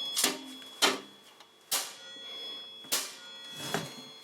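Steel frame of an Evolution Rage 4 chop saw being struck, about five sharp metallic knocks at uneven intervals, each leaving a high ringing tone: the bent frame and fence are being knocked straight.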